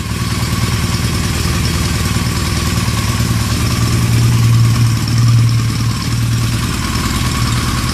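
Yamaha XJ700 Maxim motorcycle's inline-four engine idling steadily, running with its faulty kill switch bypassed. It gets a little louder for a moment around the middle.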